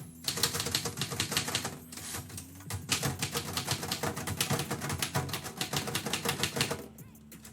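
Typewriter keys struck in quick runs of keystrokes. The typing stops about a second before the end.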